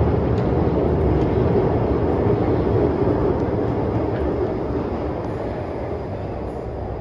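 MTR Island Line M-Train running past the platform behind the screen doors, its wheels and motors rumbling steadily and slowly fading as the train pulls away.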